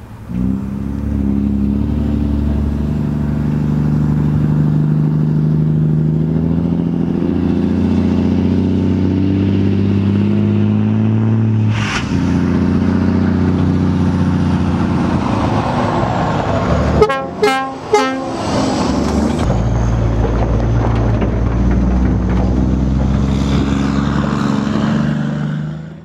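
Scania lorry's diesel engine running steadily as it drives along a dirt track, with a couple of short horn blasts about two-thirds of the way through.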